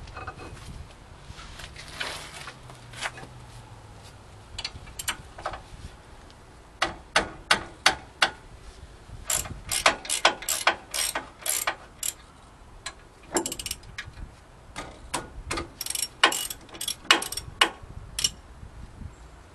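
Hand ratchet wrench clicking as it is swung back and forth on a brake caliper bracket bolt. The clicks come in short runs of several a second, with pauses between the runs.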